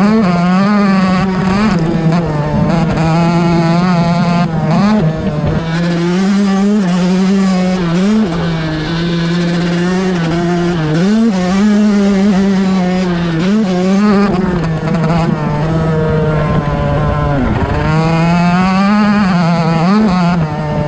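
Stock Yamaha YZ125's 125cc single-cylinder two-stroke engine running at high revs under load while riding. Its pitch dips briefly and climbs straight back up again and again as the throttle and gears change.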